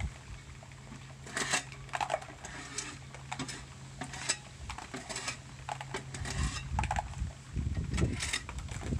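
Long-handled scraper scraping barnacles off a sailboat's bottom, a series of short, uneven scrapes and crunches against the hull, over a steady low hum.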